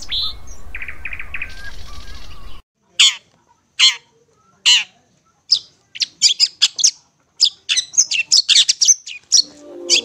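Long-tailed shrike (cendet) calling. First comes a short run of quick trilled notes over a noisy background that cuts off abruptly. Then three sharp, downslurred calls about a second apart, followed by a fast chatter of short high notes that grows denser toward the end.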